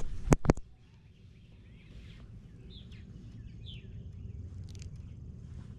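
Two sharp knocks in quick succession at the start, then a steady low rumble of wind on the microphone with a few faint bird chirps.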